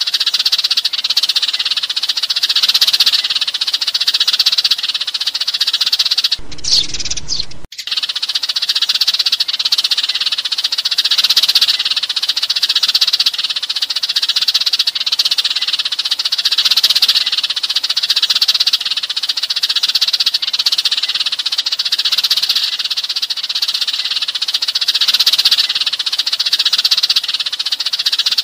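A flock of Eurasian tree sparrows chirping and chattering continuously in a dense chorus of flock-gathering calls. About six and a half seconds in, the chirping drops out for about a second.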